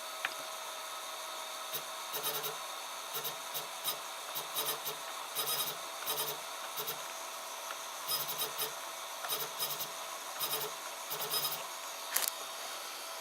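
Small 40 mm Gelid Silent 4 cooling fan running steadily with a faint whine. Over it come many short, irregular buzzing or scraping bursts, a few each second.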